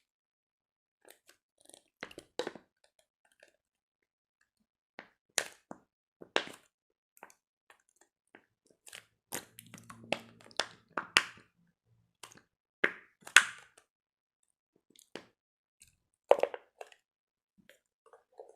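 Jiggly slime being squished and worked by hand, making irregular sticky pops and crackles in small clusters. The loudest pops come about two-thirds of the way through and again near the end.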